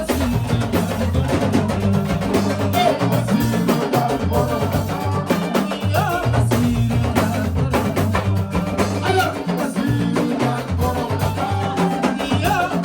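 A song playing: drums and percussion keeping a steady beat over a moving bass line.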